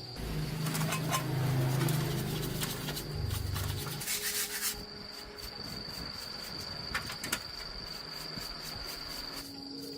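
Scraping and rubbing on a workpiece, strongest in the first four seconds, with a short hissing burst about four seconds in and a few sharp clicks near seven seconds. A steady high cricket trill runs underneath.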